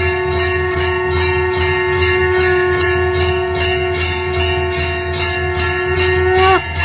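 Temple bell rung continuously with rapid strikes, about four a second, over a steady ringing tone, with a low hum underneath. Near the end the ringing bends down in pitch and breaks off for a moment.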